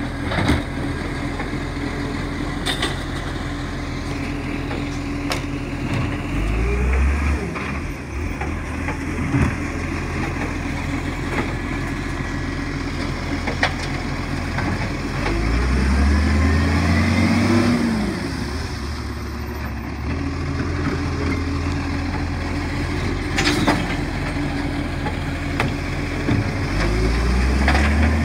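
Side-loading garbage truck running, its engine revving up three times (about a quarter of the way in, around the middle, and near the end) to drive the hydraulic arm that grabs, lifts and tips wheelie bins into the hopper, with a whine rising and falling during the middle lift. Sharp knocks of the bins and arm are scattered throughout.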